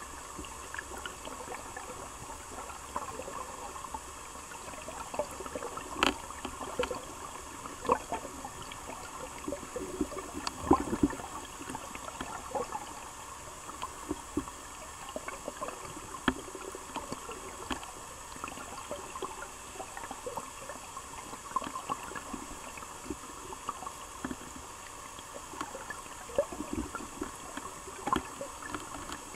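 River water flowing and gurgling steadily, with scattered small clicks and taps throughout.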